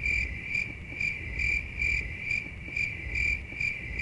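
Cricket-chirp sound effect: a steady high trill pulsing about three times a second, the stock 'crickets' gag for an awkward silence.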